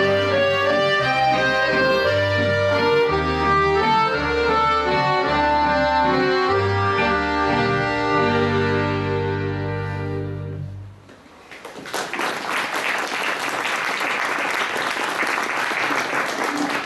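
Accordion orchestra playing, a bass line stepping under the melody, ending on a held final chord that dies away about eleven seconds in. Audience applause follows the end of the piece.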